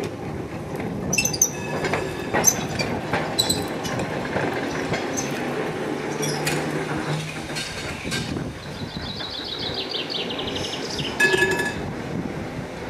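Heritage electric trams running on street track: wheels clacking sharply over rail joints, a low motor hum, and later a rapid high squealing rattle from the wheels on the rails, followed by a brief louder ringing sound.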